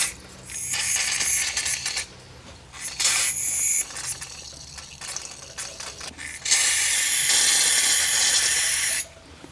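Aerosol can of brake cleaner spraying onto brake pads in several hissing bursts: one of about a second and a half starting about half a second in, a short one around three seconds, and a long spray of about two and a half seconds near the end, with faint handling clicks between.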